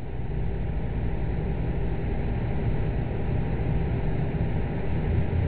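Steady low rumbling hiss with a faint hum coming through a live internet video-call audio feed while the link is breaking up and the remote guest does not answer.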